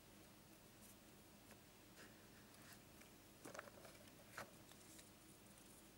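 Near silence, broken by faint clicks of plastic surprise-egg capsules knocking together as one is picked out of the tray: a few about three and a half seconds in and one more just after four seconds.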